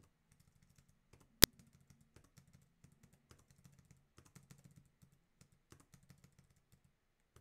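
Computer keyboard keys tapped in quick succession: the arrow keys and the S key. One sharp, loud key strike comes about a second and a half in, followed by many faint, irregular taps.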